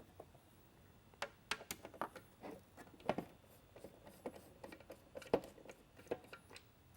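Irregular small clicks and taps of a Phillips screwdriver working out the screws that hold a mini lightbar's inner strobe assembly, with the plastic parts knocking as they are handled.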